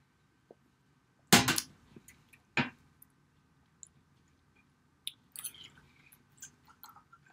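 Eating sounds at a table: two sharp, loud knocks about a second apart early on, then soft scattered clicks of a fork cutting into an omelet in a ceramic baking dish, with chewing.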